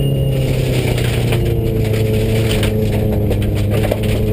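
Subaru rally car's flat-four engine heard from inside the cabin, its note dipping slightly at the start and then holding steady, with gravel crackling against the underside of the car.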